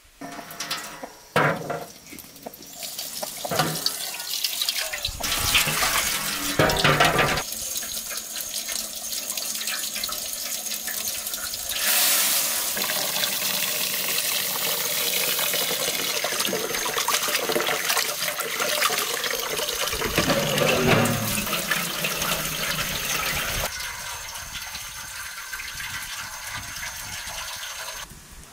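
Tap water running steadily onto rice in a basin as the rice is rinsed for pilaf. There are a few louder splashes or knocks in the first several seconds, and the rush of water grows quieter a few seconds before the end.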